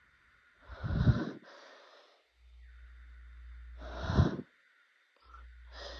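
Two hard allergy sneezes, one about a second in and one about three seconds later, each a short, explosive burst; a softer breath follows the first.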